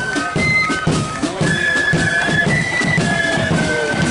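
Marching flute band playing a tune: high flutes carrying the melody over a steady beat of bass and side drums.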